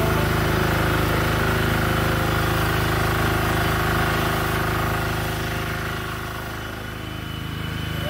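A small engine running steadily, loud and even, dipping slightly in level about six seconds in.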